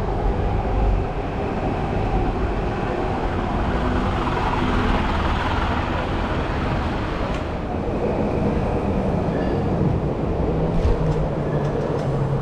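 Train running past, a steady rumble and rail noise that is a little brighter for a few seconds around the middle.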